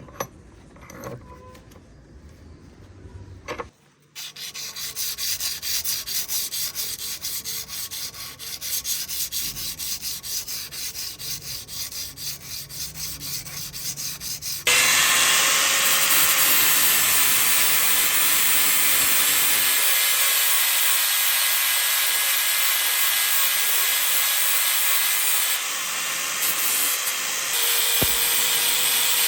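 Abrasive work on the forged steel piece: rhythmic rubbing strokes about twice a second, then about halfway through a power abrasive tool starts and runs steadily with a loud hiss.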